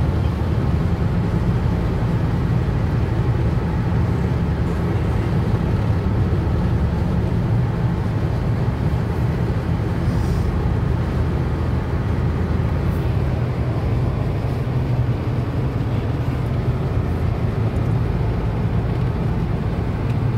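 Steady low rumble of road and engine noise inside a car's cabin, cruising at highway speed.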